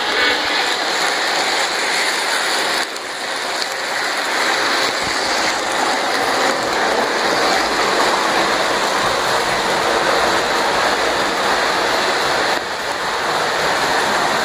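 O scale model trains rolling along the track, giving a steady rushing noise with no distinct tone. The noise dips briefly about three seconds in and again near the end.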